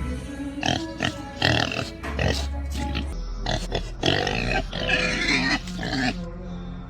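A run of short pig-like grunts and squeals, standing in for a sleeping man's loud snoring, over background music.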